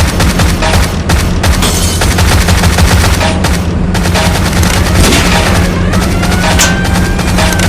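Vintage car chase sound effect: old car engines running in a steady low drone under rapid bursts of machine-gun fire. High gliding tones come in over the gunfire in the second half.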